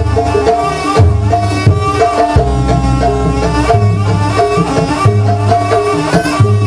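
Traditional East Javanese jaranan ensemble music: drums and pitched gamelan-style instruments playing a stepping melody over low held notes.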